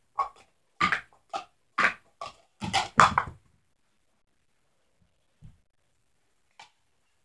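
Plastic sport-stacking cups clacking against each other and the table as they are stacked and unstacked at speed: a quick run of sharp clacks over the first three seconds or so, then a pause with two soft knocks.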